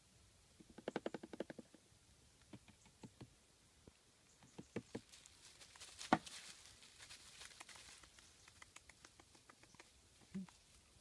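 Light steps crunching and rustling dry fallen leaves, with a quick run of steps about a second in and a sharper snap, like a twig breaking, about six seconds in.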